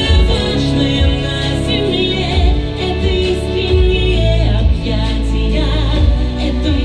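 Music: a song with a singing voice wavering in vibrato over a deep, sustained bass.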